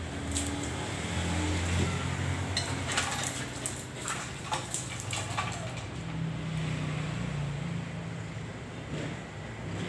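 A Shih Tzu and a corgi play-fighting: low growling that comes and goes, with scuffling and sharp clicks in the middle of the struggle.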